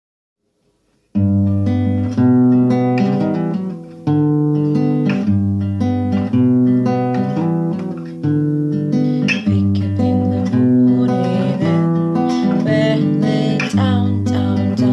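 Acoustic guitar strumming chords as a song's instrumental intro, starting about a second in.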